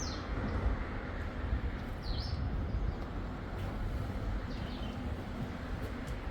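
A bird calling three times, about two seconds apart; each call is short and falls in pitch. Under it runs a steady low rumble.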